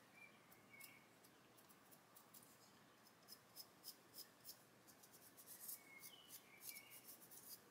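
Near silence, with faint, scattered light scratches from a fingertip rubbing metallic pigment onto the teeth of a plastic model tank sprocket.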